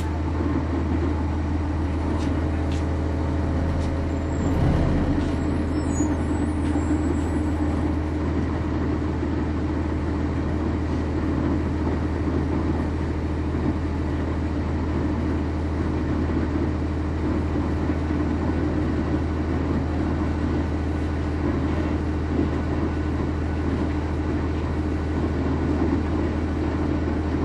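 Cabin sound on board a 1999 NovaBus RTS transit bus: its Cummins ISC inline-six diesel runs with a steady low drone. A brief louder bump with some faint squeaks comes about five seconds in.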